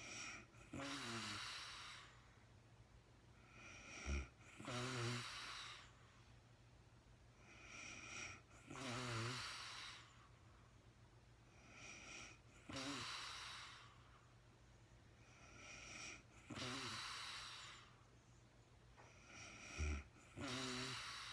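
A woman snoring in her sleep, about one breath every four seconds. Each breath is a short wavering snore followed by a longer breathy rush of air.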